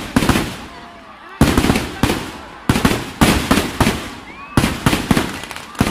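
Firecrackers packed into a burning Ravana effigy going off in an irregular string of loud bangs, roughly one every half second, each fading out before the next.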